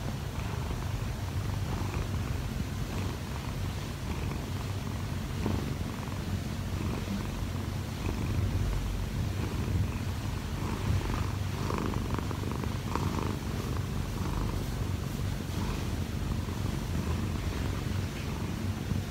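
Munchkin cat purring steadily, a low, fast rumble with no break, while it kneads contentedly.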